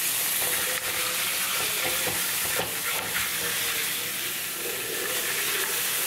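Burger patties sizzling steadily in a frying pan. A spatula scrapes and taps against the pan a few times as it is worked under the patties to check they aren't sticking.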